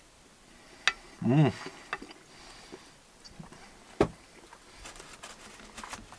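A man eating a meal: a short hummed voice sound about a second in, and sharp clicks of a metal fork or spoon against the frying pan, the loudest about four seconds in, with faint small clicks between.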